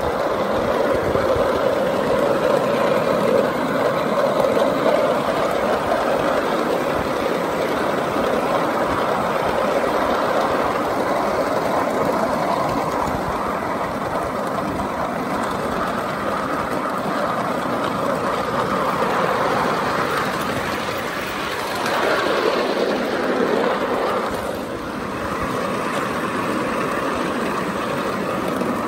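Ridable miniature steeple cab locomotive and its train running along a small-gauge track: a steady rolling rumble of wheels on rail and running gear, swelling briefly a little past twenty seconds.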